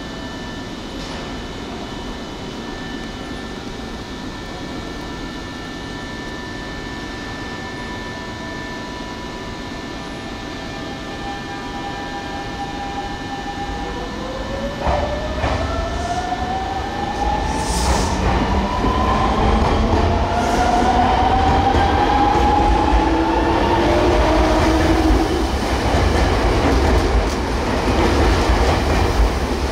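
Electric train pulling away: a faint steady whine at first, then from about halfway its traction motors' whine climbs in pitch in several rising sweeps as it speeds up, over a growing low rumble of wheels on the rails.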